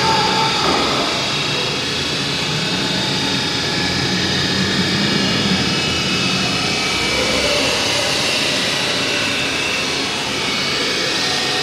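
CNC router running and cutting: a loud, steady rushing noise with a high whine over it that shifts slightly in pitch.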